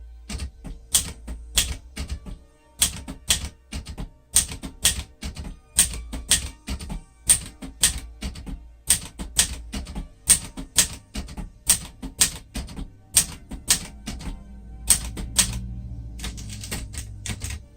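Underwood 315 manual typewriter typing out the letters of the alphabet: a steady run of sharp keystroke clacks, about two to three a second with short pauses between runs.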